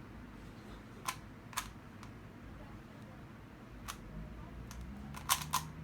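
Rubik's cube layers being turned by hand, giving sharp plastic clicks: a few scattered ones, then a quicker cluster near the end.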